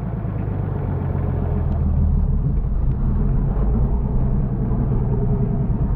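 An off-road 4x4's engine running with a steady low rumble that swells slightly over the first couple of seconds and then holds.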